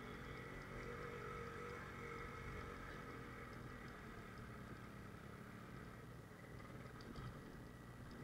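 Yamaha RX100's two-stroke single-cylinder engine running steadily while the motorcycle is ridden along a dirt trail.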